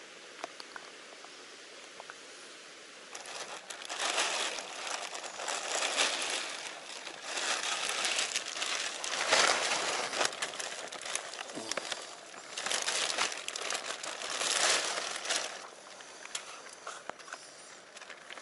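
Clear plastic sheeting crinkling and rustling as hands rummage through tackle on it, in loud irregular bursts starting about three seconds in and easing off near the end, with scattered small ticks after.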